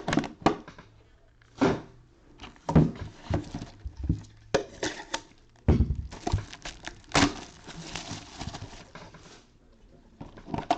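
Handling noise from trading-card tins and packs on a table: a series of sharp clicks and knocks, with a few seconds of wrapper rustling partway through.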